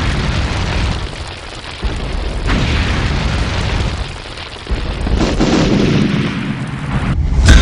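Thunder rumbling in several rolling swells over a steady hiss of rain, with a sharp crack of thunder just before the end.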